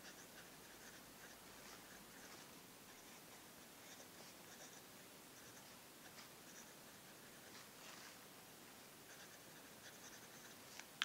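Parker Sonnet fountain pen nib scratching faintly across paper in short, irregular strokes while handwriting. A single sharp click near the end.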